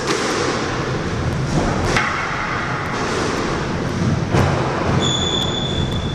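Squash rally: the ball cracking off rackets and the court walls in several sharp knocks a second or two apart, echoing in the enclosed court. A high, steady squeak sounds for about a second near the end.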